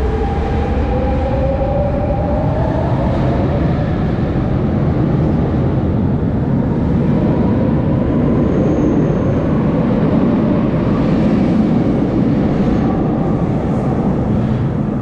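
Subway train pulling away: its electric motors whine, rising in pitch over the first few seconds, then the train runs on with a loud, steady rumble.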